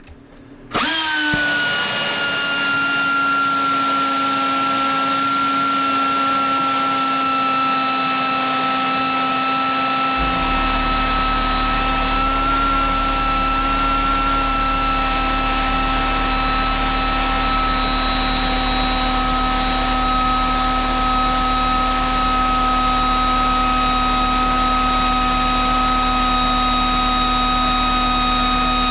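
Small pneumatic angle grinder running flat out with a steady high whine, being run continuously while its right-angle gearbox is torch-heated to test how much heat the gears and bearings can take. The whine starts about a second in and its pitch settles slightly, and a low steady hum joins about ten seconds in.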